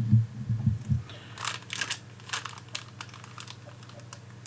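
Light clicks and crinkles of hands handling a reel of solder and a plastic-wrapped perfboard, with a few soft low thumps in the first second, over a faint steady low hum.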